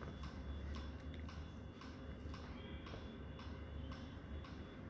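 Faint, evenly spaced ticking over a low steady hum.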